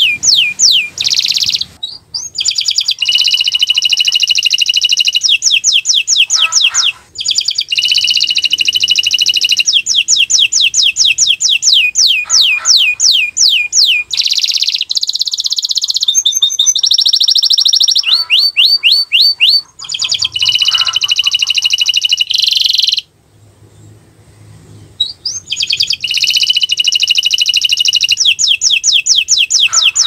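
Domestic canary singing almost without stop: runs of fast repeated falling notes alternate with dense buzzing trills, broken by a few brief pauses and a gap of about two seconds past the middle.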